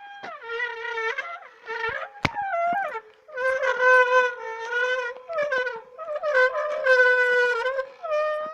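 Vehicle brakes squealing in a series of long, loud squeals that hold one pitch with many overtones, broken by short gaps.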